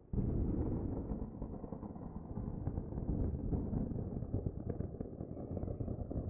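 Pyroclastic flow of hot ash and rock rushing down a volcano's slope: a loud, low rumble full of crackling, starting abruptly just after the start and continuing steadily.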